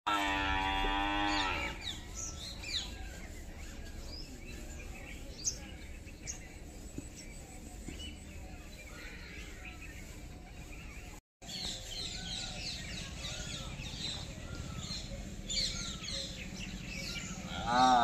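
Domestic water buffalo lowing: one long, loud call of about a second and a half at the start, and another call beginning near the end.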